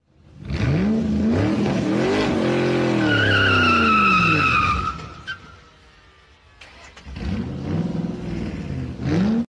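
Car engine revving up and down, with a tyre squeal about three seconds in lasting over a second, then a second, quieter rev near the end.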